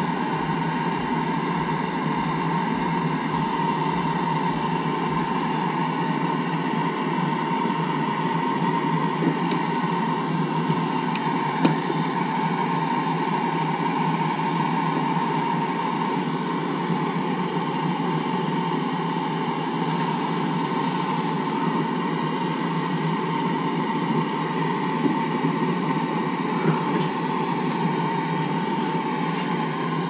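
Wet/dry shop vacuum running steadily with its hose fitted to an open copper water line, drawing the water out before the joint is soldered. There is a steady whine under the motor noise, and a light click about 12 seconds in.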